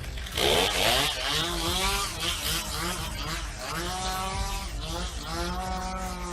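Chainsaw engine revved up and down repeatedly, its pitch rising and dropping back several times, with a loud noisy burst about half a second in.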